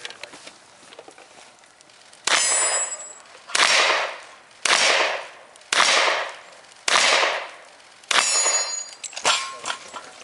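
Smith & Wesson 610 revolver firing a steady string of about seven shots, a little over a second apart, each trailing off in an echo, with a ringing tone after the first and sixth shots.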